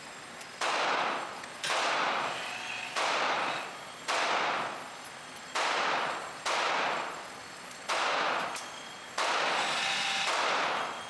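Handgun shots at a shooting range, about ten in a row at roughly one a second, each a sharp crack followed by a decaying echo.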